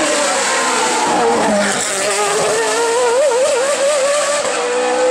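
Race car engine running hard under load. Its pitch wavers quickly a few seconds in, then climbs slowly and steadily near the end as it accelerates.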